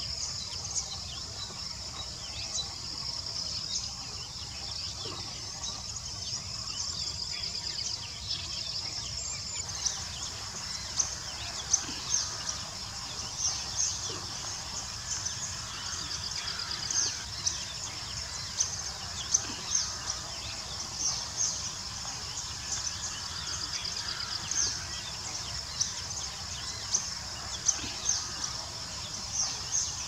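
Outdoor ambience of a steady insect drone with short bird chirps and calls scattered over it. The chirps become louder and more frequent after about ten seconds.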